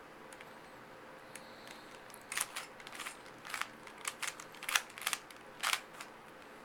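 Plastic Rubik's Cube layers being twisted by hand, a rapid run of a dozen or so short clicking snaps starting about two seconds in and stopping near the end.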